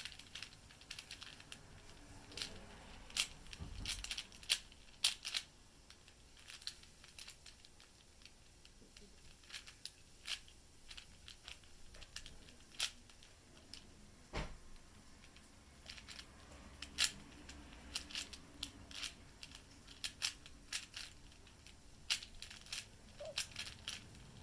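Plastic 4x4 Rubik's Cube being turned by hand: irregular sharp clicks and clacks of the layers, sometimes in quick runs, with an occasional duller knock, while hunting for edge pieces to pair.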